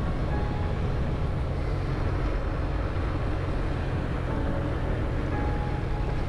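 Steady low rumble of a vehicle driving along a paved road.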